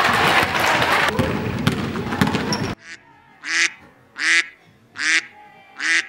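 Basketball game noise in a sports hall, with players' voices and court sounds, cuts off abruptly a little under three seconds in. Four short honks follow, evenly spaced about 0.8 s apart: a dubbed comic honking sound effect.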